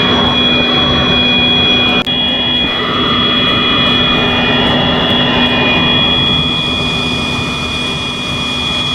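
Electric high-pressure washer running at full speed, its motor whine held at a steady pitch over the hiss of the spray. It falters briefly about two seconds in and stops suddenly at the end.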